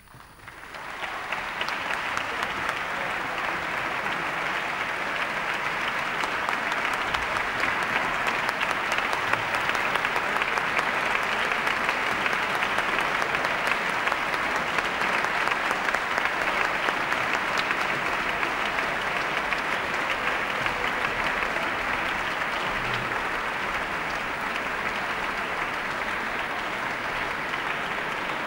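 Concert audience applauding: the clapping breaks out suddenly after a hush, swells within a couple of seconds and then holds steady.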